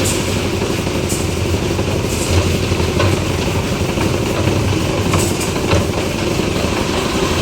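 Engine of a concrete mixer-lift machine running steadily, with a few short clatters.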